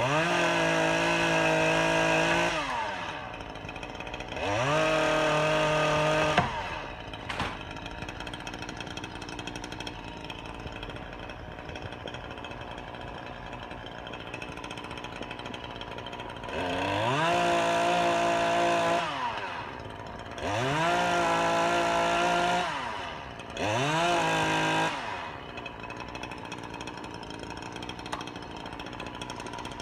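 Small chainsaw revving up to full speed five times, each burst about two seconds long, while cutting dead branches, and dropping back to a steady idle in between.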